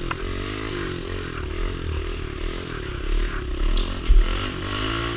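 Kawasaki KLX110 pit bike's small single-cylinder four-stroke engine revving up and down again and again under throttle. A dull thump stands out about four seconds in.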